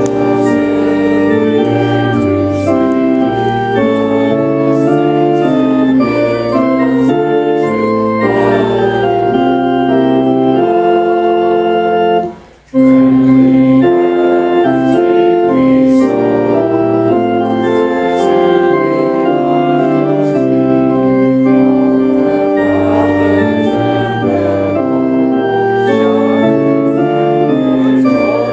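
Church organ playing a hymn in sustained, changing chords, with a short break about twelve seconds in between phrases.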